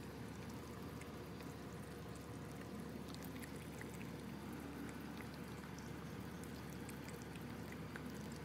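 Pit bull puppy gnawing and licking a piece of raw chicken: scattered small wet clicks and smacks from its mouth over a steady faint hiss.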